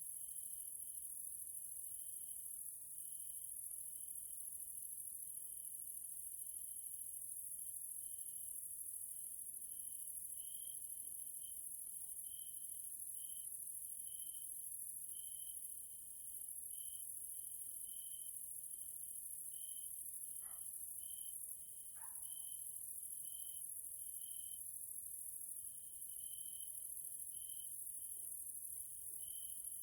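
Evening chorus of grasshoppers and other singing insects: a continuous high-pitched shrill buzz, with a lower, pulsing chirp from another insect repeating unevenly throughout. Two brief faint calls come about two-thirds of the way through.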